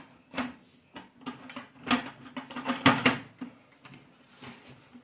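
Sheet-metal windscreen of a Berger camping kitchen clicking and rattling as its panels are handled and fitted into holes in the slatted tabletop: a handful of light knocks, the loudest about three seconds in.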